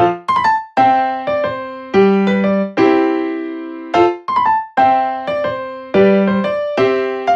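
Background music: a light keyboard tune of struck, piano-like notes that each fade away, with a short phrase repeating about every four seconds.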